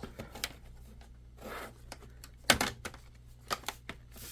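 Plastic laptop bottom cover being handled and pressed into place: scattered small clicks and light scraping, with one sharper snap about two and a half seconds in as a tab seats.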